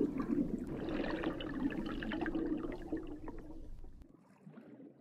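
Bubbling, trickling water effect with a low ringing tone under it. It fades out over about four seconds after the song's last chord, and faint traces linger just after.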